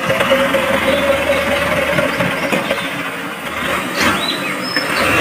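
Radio-controlled model dump truck driving over wet, muddy ground, its electric drive motor and gearbox giving a steady whine over a rough running noise. A few clicks come near the end.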